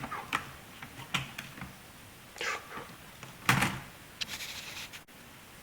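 Plastic clicks and knocks of a laptop's keyboard deck being pressed down and snapped into place: a handful of separate snaps, the loudest a little past halfway.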